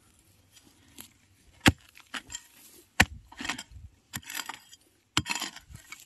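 A hoe digging into stony soil around a spring bamboo shoot: three sharp strikes, each followed by a short scrape of earth and grit.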